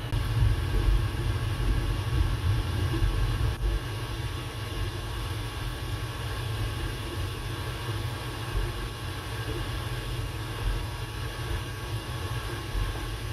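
3D printer running mid-print: a steady whir from its fans with a low hum, and several steady tones from its stepper motors as the print head moves.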